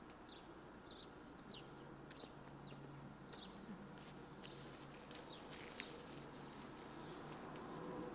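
Faint outdoor ambience: scattered short bird chirps and a few light footsteps on grass, over a faint low steady hum.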